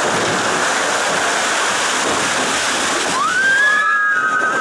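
Steady rush of water in the boat ride's flume channel. About three seconds in, a high tone rises quickly and then holds for about a second and a half.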